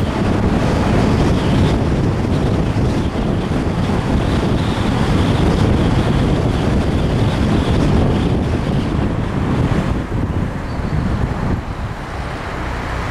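Heavy wind buffeting on the microphone over the engine and road noise of a Porsche 944 driving at town speed. Near the end it eases as the car slows, and a steady low engine note comes through.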